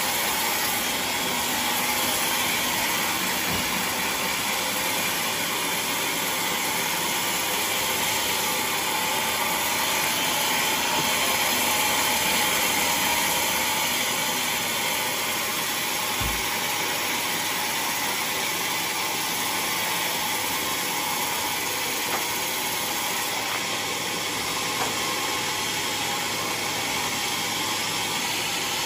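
Sawmill machinery running with a steady, even mechanical noise that holds without change.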